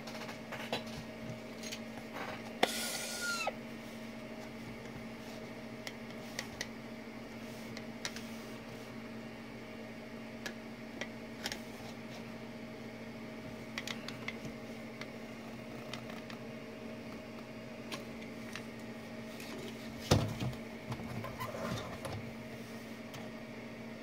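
Steady machine hum with a low steady tone, with small handling clicks as a steel tape measure is drawn out and held against a plastic 3D-printed statue. A brief metallic rattle comes a few seconds in, and a louder knock about 20 seconds in.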